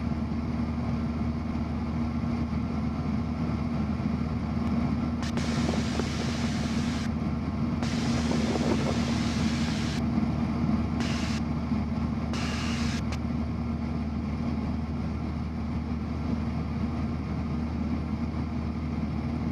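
Cessna 172's piston engine and propeller droning steadily, heard from inside the cabin in cruise-power flight.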